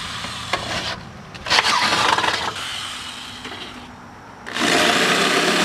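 Electric drill boring through a car hood, running in three bursts of about a second each with short pauses between.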